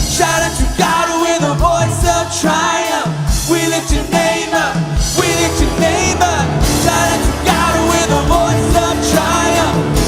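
Live worship band playing an upbeat rock-style song, with drums, bass guitar, electric guitars and piano under a group of singers, and a steady kick-drum beat.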